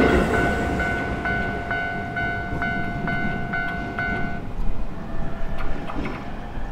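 Railway level crossing's warning bell ringing in a steady rapid clang, about twice a second, over the fading rumble of a Keio Line train that has just gone by. The bell stops a little over four seconds in.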